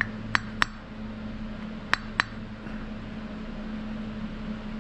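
Hammer tapping a length of wire against a small bench anvil to straighten it: five sharp metallic taps, three in quick succession at the start and two more about two seconds in. A low steady hum runs underneath.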